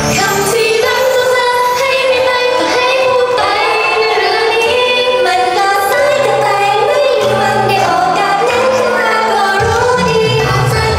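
Japanese idol group's pop song performed live: young female voices singing the melody over instrumental backing.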